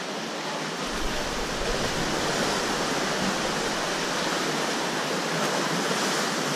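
Small sea waves washing and splashing against shoreline rocks: a steady rush of water.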